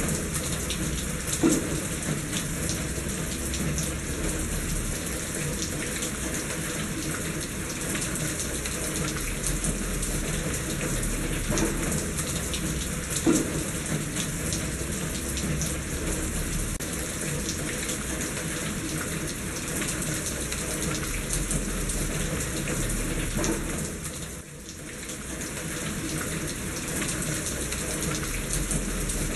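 Steady rain with water running and splashing in a gutter, with a couple of sharp drip knocks and a brief drop in level about twenty-four seconds in.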